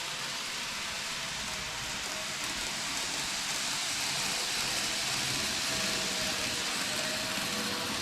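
TOMIX 475-series N-gauge model electric train running on track: a steady hiss of motor and wheel noise with a faint whine, slowly getting a little louder.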